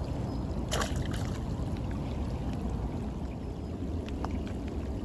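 Steady rain noise with scattered faint drop ticks, and a brief splash a little under a second in as a released bluegill drops back into the water.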